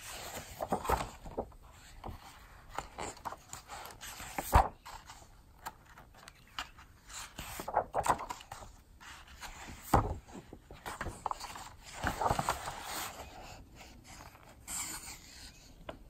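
Pages of a large art book being turned and handled: paper rustling and sliding, with a couple of sharp taps about four and a half and ten seconds in.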